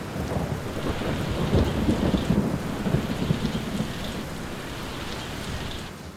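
Steady rain falling on a wet street and pavement, with a low ragged rumble under the hiss that swells about one and a half to three seconds in.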